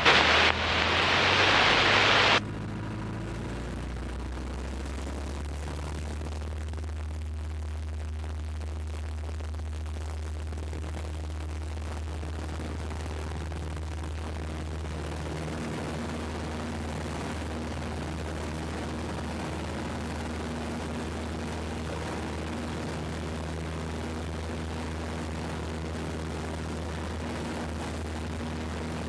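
Piper PA-17 Vagabond's engine at takeoff power during the takeoff run and climb-out, a steady low drone. A loud hiss covers the first two seconds and cuts off suddenly.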